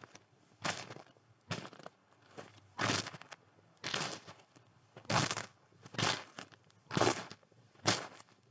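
Footsteps crunching in snow at a steady walking pace, about one crunchy step a second.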